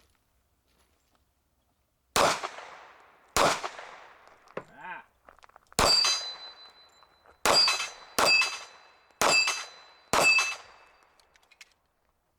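Seven .45 ACP shots from a Springfield Range Officer Compact 1911 pistol, fired at an uneven pace. From the third shot on, each is followed by the ring of a struck steel target.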